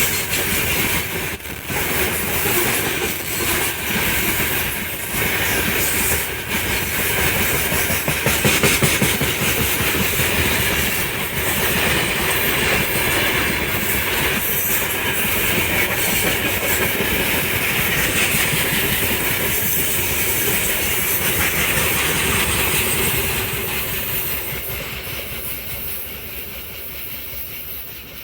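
Freight train rolling past behind a VL10U electric locomotive, its wagon wheels clacking over the rail joints in a dense, steady rhythm. The sound fades away over the last few seconds.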